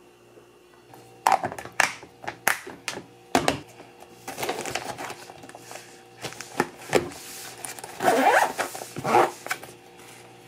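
Plastic lunch containers knocking against each other as they are stacked into a foil-lined insulated lunch bag, with the bag rustling, then a few louder scraping zips near the end as the bag is zipped shut.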